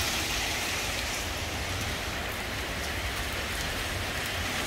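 Heavy rain falling steadily onto wet pavement and street.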